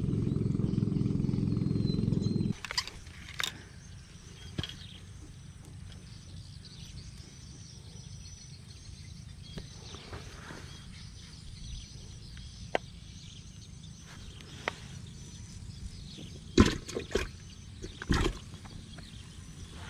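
Low rumbling noise of wind buffeting the microphone, cutting off sharply about two and a half seconds in. After that, quiet outdoor ambience with a faint steady high whine and a few sharp knocks near the end.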